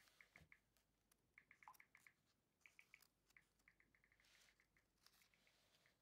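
Near silence: room tone with very faint, quick high ticks in short clusters.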